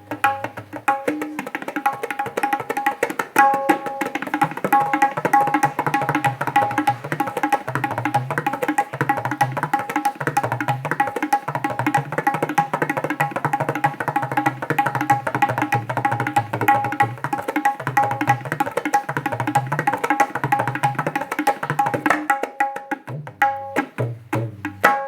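Tabla played in a fast, continuous run of strokes: the treble drum rings at one steady pitch while deep bass-drum strokes come and go beneath it. The strokes thin out and stop near the end.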